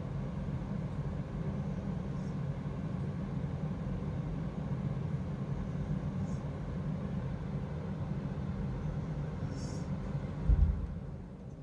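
A woman snoring in her sleep: faint high, breathy whistles about every four seconds over a steady low rumble. A thump comes near the end, after which the rumble drops away.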